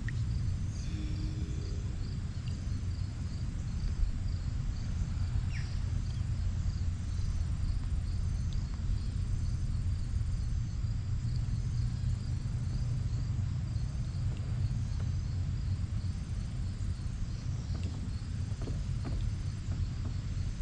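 Insects chirping in a steady pulsing rhythm over a constant low rumble.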